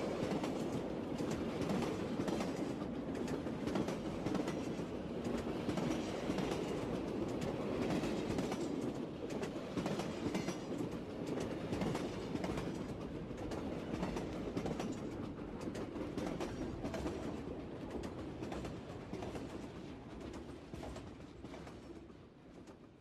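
Steady rumbling, clattering noise with many quick clicks, fading out over the last several seconds.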